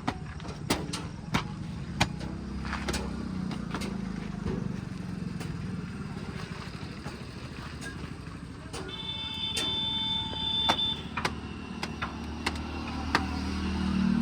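Heavy diesel earth-moving machinery running steadily, with repeated sharp knocks and clanks. About nine seconds in, a steady pitched tone sounds for roughly two seconds.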